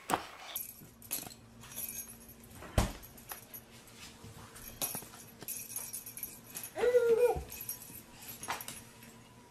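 A dog whimpering once, a short falling whine about seven seconds in, among light jingling and scattered clicks.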